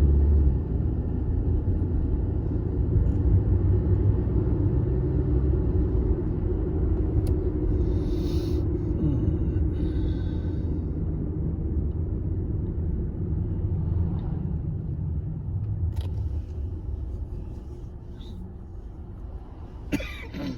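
Low rumble of a car driving, heard from inside the cabin, easing off and growing quieter over the last few seconds as the car slows. A few sharp clicks sound near the end.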